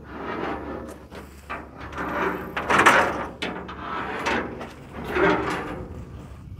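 Irregular knocks and rattles from a metal stock trailer as horses shift about inside it, the loudest about three seconds in.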